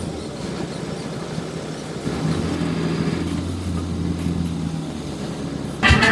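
City bus engine running with a steady low drone, heard from inside the passenger cabin, getting a little louder after about two seconds. Just before the end it cuts abruptly to loud live band music.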